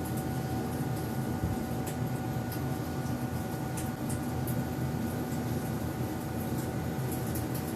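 A steady low mechanical hum with a thin constant whine over it, and faint scattered light ticks.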